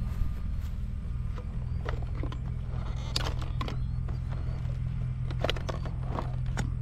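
Scattered plastic clicks and rattles from hands working an RC monster truck's body and clips: a cluster about three seconds in and another near the end, over a steady low rumble.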